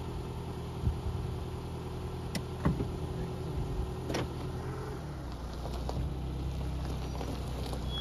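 Car rolling slowly over river gravel: tyres crunching the loose stones, with scattered sharp clicks and knocks from the pebbles, the loudest about a second in and near three seconds in, over a steady low engine hum whose note shifts about five seconds in.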